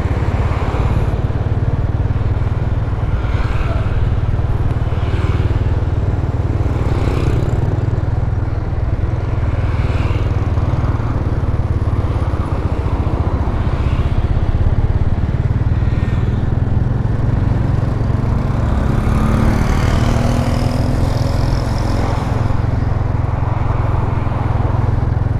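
Steady low rumble of motor vehicles on a street, heard from a moving vehicle, with a passing engine rising in pitch about twenty seconds in.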